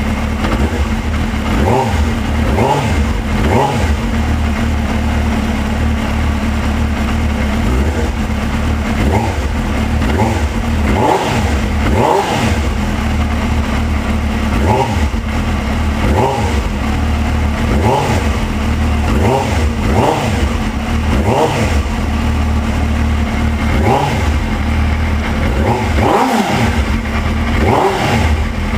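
Suzuki GSX-R 600 inline-four motorcycle engine idling steadily, with a short throttle blip every second or two that briefly raises and drops the revs. The engine is running after a fresh oil change.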